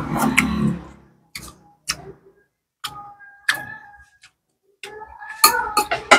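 Close eating sounds: chewing and wet mouth clicks, with a metal spoon clinking against a ceramic bowl, which rings briefly around three seconds in and again near the end.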